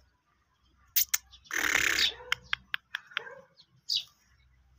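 Caged black francolin calling: two sharp clicks, then a loud harsh, grating note with a quick run of clicks after it, and a short high note near the end.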